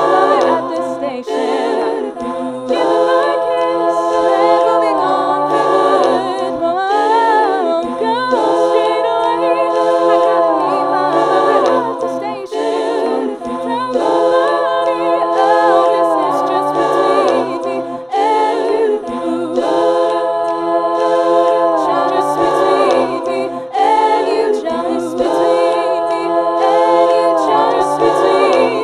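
Layered a cappella vocal harmonies built up on a loop pedal: several sung parts holding long notes together, with some gliding in pitch.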